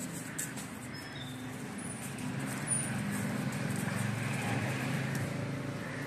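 Two dogs play-wrestling on a marble floor: claws clicking and scuffling on the stone, over a steady low hum.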